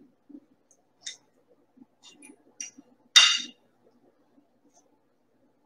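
Knife and fork clinking against a dinner plate while cutting food: several light clinks, then one louder, ringing clink about three seconds in.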